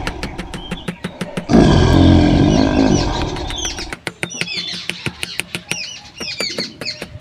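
A recorded lion's roar, one long low call starting about a second and a half in, followed by birds chirping in the second half, over a fast steady clicking.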